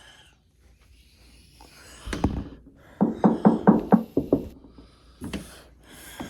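A rapid run of about seven hard knocks, like pounding on a door, after a single thump about two seconds in.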